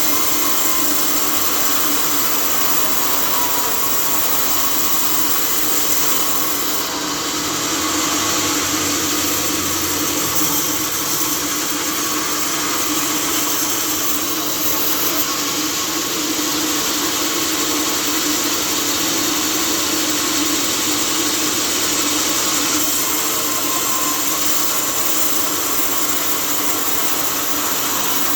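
Sawmill saw running steadily through timber, a loud continuous machine noise with a strong hiss.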